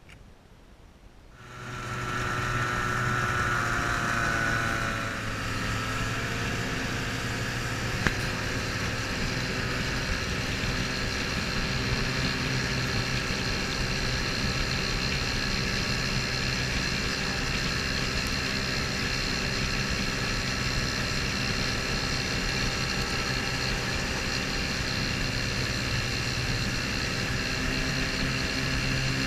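Antique outboard motor running steadily at cruising speed, heard from aboard a small open aluminum boat, with the rush of water and wind. It comes in about a second and a half in, its pitch settling after the first few seconds.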